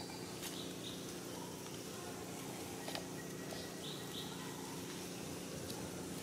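Outdoor ambience: a steady low hum and hiss, with faint short high chirps now and then and a few light clicks.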